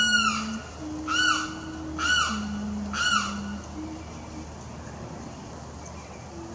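Limpkin calling: four loud cries about a second apart, each rising and then falling in pitch, over a few lower steady tones.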